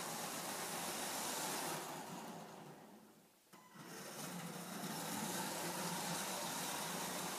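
LEGO Power Functions train motor whirring as the train runs along plastic track. The sound fades almost to silence about three seconds in, then comes back abruptly with a lower hum added.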